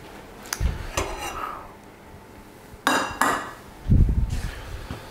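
Metal pans and utensils clanking on a kitchen hob: sharp clinks that ring briefly, in pairs about a second in and about three seconds in, then a few low thuds.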